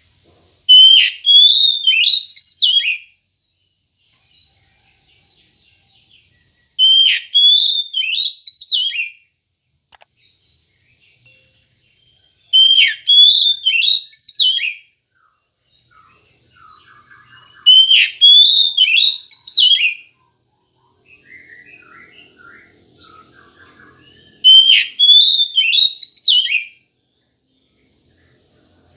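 Oriental magpie-robin (kacer) singing: five loud phrases of rapid repeated notes, each about two seconds long, coming about every six seconds.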